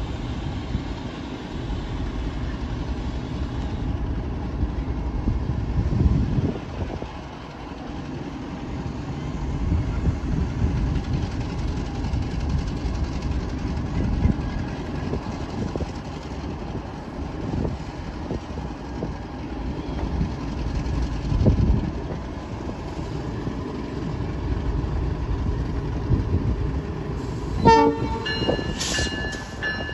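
A freight train rolling past with a steady low rumble and wheel clatter, louder thuds every few seconds. Near the end a train horn sounds, a chord of several steady tones.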